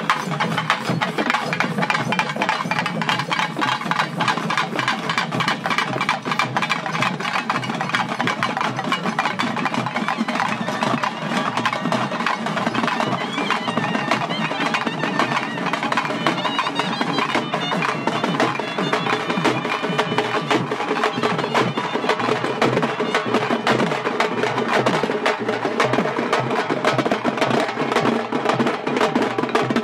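A large Tamil folk drum ensemble of stick-beaten barrel drums and double-headed drums plays a dense, steady beat. A reed wind instrument plays a melody over it.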